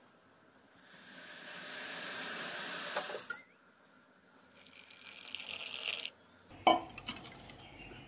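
Milk poured from a steel vessel into a ceramic mug: a steady pouring hiss that builds and stops after a few seconds, then a second, shorter pour. A single sharp knock comes near the end.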